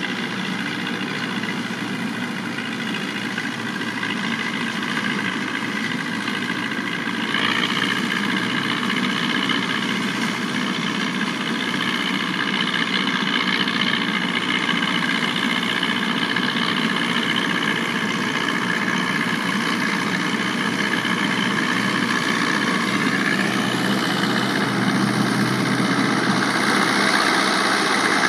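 Tractor engine and the PTO-driven straw chopper it pulls, working together with a steady mechanical drone; the sound steps up in loudness about seven seconds in.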